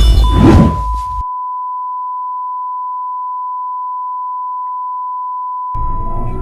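A single steady electronic beep, one unwavering high tone held for about six seconds. For its first second it lies under loud electronic music with a whoosh, and the music comes back in near the end.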